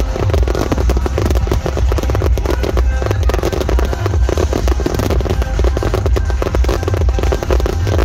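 Fireworks barrage: many firework shells bursting in rapid, overlapping bangs, over loud music with heavy bass.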